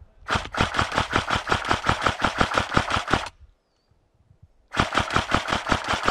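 Airsoft replica firing on full auto: two bursts of rapid, evenly spaced shots, the first about three seconds long and the second under two.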